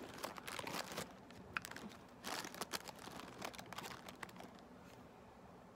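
Thin clear plastic bag crinkling as it is handled and fries are pulled out of it, in irregular bursts of crackle that die away about four and a half seconds in.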